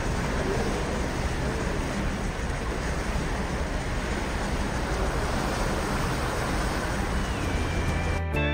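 Steady rush of wind and sea heard from high on a ship's side, with a deep rumble of wind on the microphone and no distinct events. Music with slide guitar comes in near the end.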